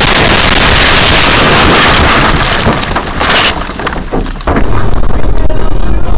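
Loud wind and road noise of a moving vehicle on a dashcam recording. About four and a half seconds in it cuts abruptly to a louder recording dominated by a heavy low rumble.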